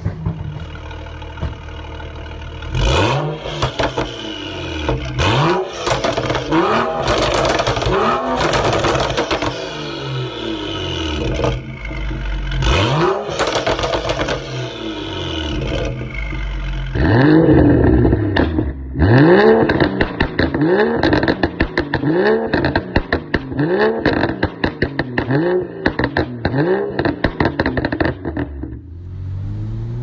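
Tuned BMW F30 335i's turbocharged straight-six revved again and again with sharp throttle blips, the exhaust crackling and popping on the overrun between revs: the pops-and-bangs behaviour of an MHD/JB4 tune. In the second half the blips come quickly, about once a second, each followed by a burst of crackles.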